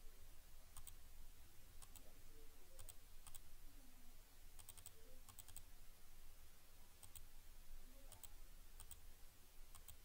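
Computer mouse clicking now and then, about ten sharp clicks spread unevenly, several as quick double ticks, over a faint low hum.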